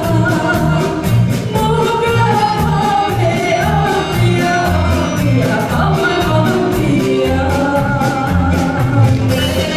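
A woman singing a sevdalinka live, her voice bending and holding notes, backed by a band with a repeating bass line and a steady drum beat.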